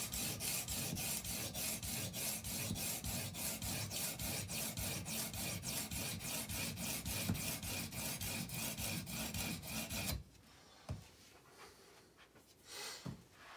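Wet diamond sharpening stone on an Edge Pro Apex guide arm rasping back and forth across a steel chef's knife blade in rapid, even strokes, grinding metal off to thin the blade behind the edge. The strokes stop suddenly about ten seconds in, leaving a few faint knocks.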